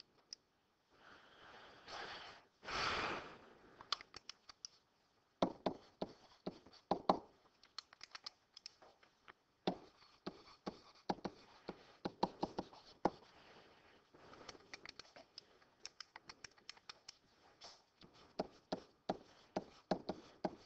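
Light, irregular tapping and clicking from hand work at a desk while a calculation is written out and worked through. About two to three seconds in there are two short breathy rushes of noise.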